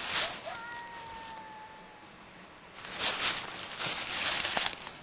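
Footsteps and rustling through dry leaves and brush in the woods, loudest in a stretch of about two seconds near the end. About half a second in, a thin, steady whistle-like tone is held for about a second and a half.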